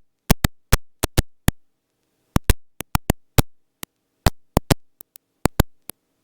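About twenty sharp, irregular clicks over dead silence, with no engine or rotor sound between them.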